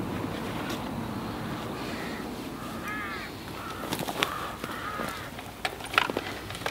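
A bird calls several times in short, arched calls, over a low rustle of handling. Sharp clicks come about four seconds in and again around six seconds, where the angler is handling the weigh sling and scales.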